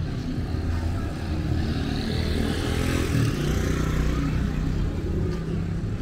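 Heavy cargo truck's engine running at low speed, its sound swelling a little around the middle.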